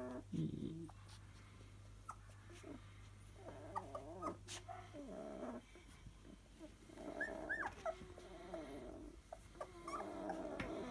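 Young Siberian husky puppies whimpering and squeaking faintly with short high whines, a few times: about four seconds in, again about seven to eight seconds in, and near the end.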